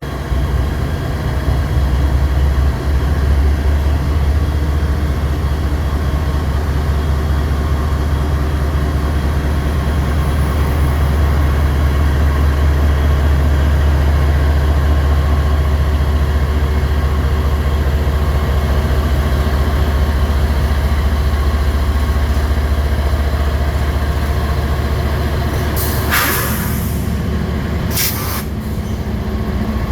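CSX freight diesel locomotives notching up their throttles as an empty coal train pulls away, with a heavy, steady low engine rumble. Near the end the rumble changes and two short bursts of air hiss, the first about a second long.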